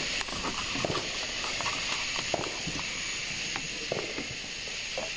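Small consumer firework burning: faint scattered crackles and pops over a steady high-pitched hiss.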